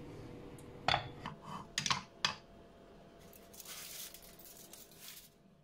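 Heavy lid of a black pot lifted off, with a few sharp knocks and clinks about one to two seconds in, then aluminium foil crinkling as it is handled and peeled back from the pot's rim.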